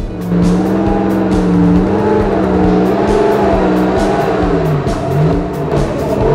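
Turbocharged Pontiac Fiero's engine running as the car creeps forward, mixed with background music that has a steady beat.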